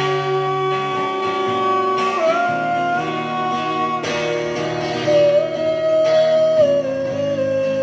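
Live music: an instrumental guitar passage without singing, played through a small amplifier speaker. Long held melody notes step from one pitch to the next over a steady accompaniment.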